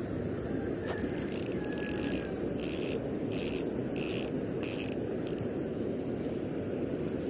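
Fishing reel being cranked, its mechanism clicking in short, evenly spaced strokes about twice a second that stop about five seconds in.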